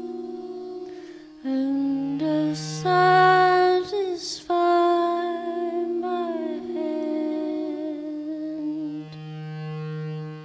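A woman's wordless sung tones into a microphone, layered with held electronic drones from speaker-feedback instruments. Several steady pitches sound at once and shift in steps, swelling loudest a few seconds in, with a downward slide of pitch about six seconds in.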